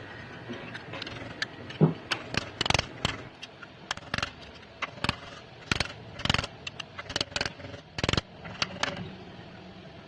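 Hammer blows driving a new crankshaft wear sleeve onto the rear of the crankshaft, with the old sleeve used as a driver: a run of irregular sharp metallic taps, some harder than others.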